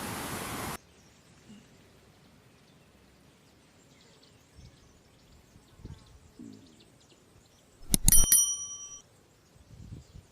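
Steady rain hiss that cuts off abruptly under a second in, leaving faint bird chirps. About 8 s in, a loud bell-like metallic ring with several clear tones dies away over about a second.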